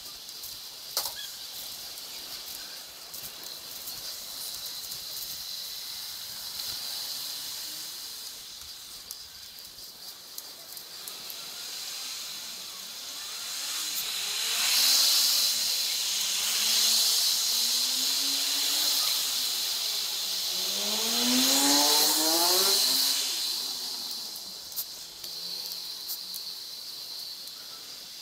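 Road noise from a bicycle riding through city traffic on wet streets: a steady hiss of wind and tyres that swells louder twice in the second half, with the engine note of a passing motor vehicle rising and falling.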